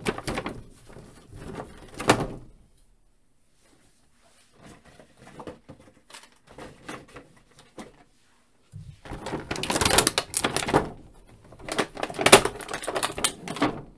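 Clear plastic blister-pack tray crinkling and crackling as it is handled and reached into. There is a spell of crackling at the start, sparse faint rustles in the middle, and a louder, denser stretch from about nine seconds in.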